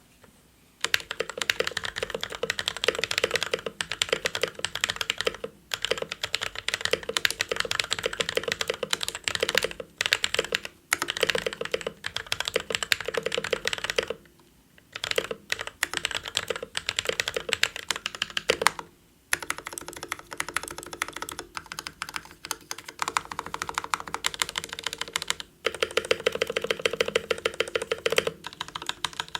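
Typing on a Glorious mechanical keyboard: rapid key clacks in runs of a few seconds, broken by several short pauses.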